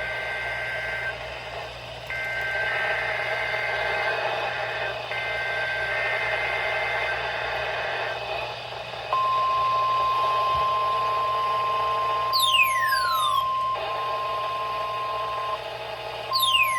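NOAA Weather Radio Required Weekly Test over a receiver: the EAS SAME header, three bursts of warbling two-tone digital data with short gaps, then a long steady alert tone starting about nine seconds in, crossed twice by a quick falling chirp.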